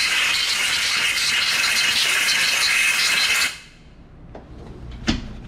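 Compressed-air blow gun hissing steadily as it blows belt dust out of a CVT primary clutch, cutting off suddenly about three and a half seconds in. A single sharp knock follows near the end.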